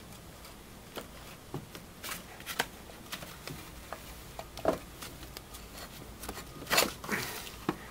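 Light clicks, knocks and rubbing of metal parts as a power steering pump is worked by hand out of its mounting bracket, with two sharper knocks, about five and seven seconds in.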